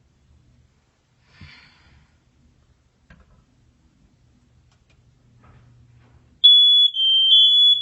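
Quiet at first, with a faint low hum and a few small noises; about six and a half seconds in, a smoke alarm starts sounding a loud, high-pitched tone that keeps going.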